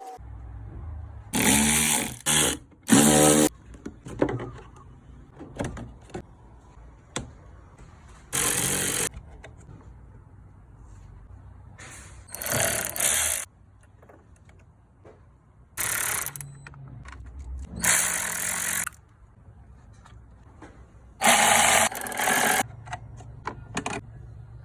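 Handheld power tool run in short bursts, about eight times, each half a second to a second long, as fasteners are worked during a car battery replacement.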